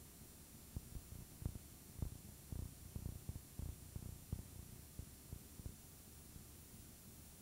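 Steady tape hiss with a run of about a dozen irregular soft, low thumps in the middle few seconds.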